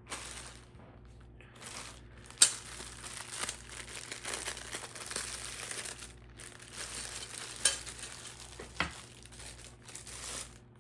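Packaging crinkling and rustling as ceiling fan parts are unwrapped by hand, with a few sharp knocks about a third of the way in and near the end.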